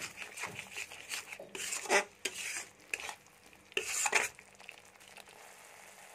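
Steel spoon stirring and scraping thick masala paste around a metal kadhai, with irregular scrapes and clinks against the pan, the loudest about two and four seconds in. After that a faint steady sizzle of the masala frying in mustard oil, cooked until the oil separates.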